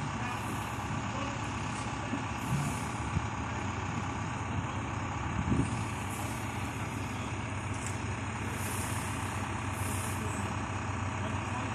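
Truck-mounted mobile crane's diesel engine running steadily while it hoists a load, with several short hisses and a few light knocks, the strongest about five and a half seconds in.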